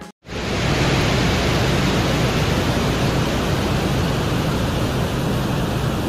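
Microphone recording from the surface of Venus made by the Soviet Venera 13 and 14 landers: a steady hiss of noise with no distinct events, starting just after a brief moment of silence.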